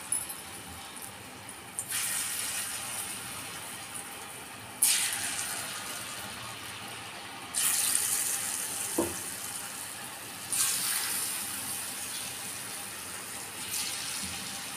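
Tala pitha (palm-fruit fritter) batter deep-frying in hot refined oil: a steady sizzle that surges sharply five times, about every three seconds, as each new spoonful of batter goes into the oil, then settles back.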